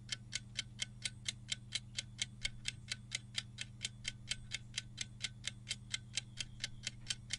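Clock-ticking sound effect, even ticks about four a second, over a faint steady low hum, marking a quiz countdown timer running down.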